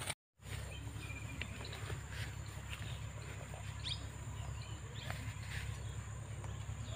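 Rural outdoor ambience: scattered short bird chirps over a steady high insect drone and a steady low rumble. The sound cuts in after a brief dropout at the start.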